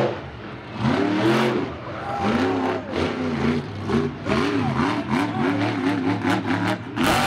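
Monster truck engine revving up and down over and over as the truck drives and turns, its pitch rising and falling about once a second.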